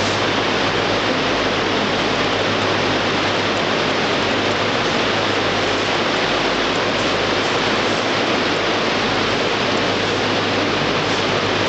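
A loud, steady hiss with a low hum underneath, unchanging throughout, with no speech or distinct events.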